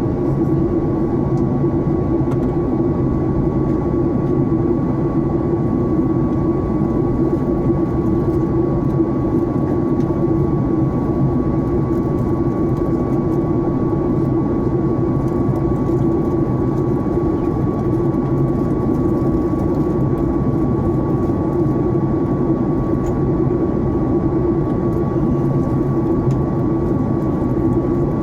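Jet airliner cabin noise in flight: a steady drone of engines and airflow, with a thin steady high whine over it.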